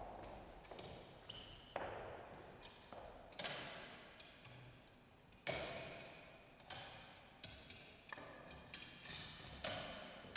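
Light metallic clinks and knocks, scattered one to two seconds apart, each dying away in the long echo of a large church.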